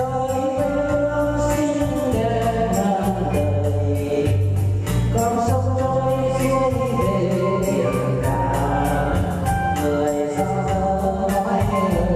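A voice singing a song over electronic organ backing with a steady bass line.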